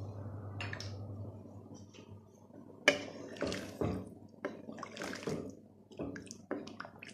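Wooden spoon stirring rice and chicken pieces in hot broth in a cooking pot: irregular sloshing and scraping strokes that start about three seconds in, the first one the sharpest. Before that, a steady low hum fades out about a second in.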